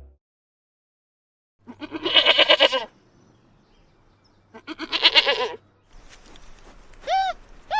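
Two long, wavering animal calls a few seconds apart. After about six seconds come two shorter calls that rise and fall in pitch.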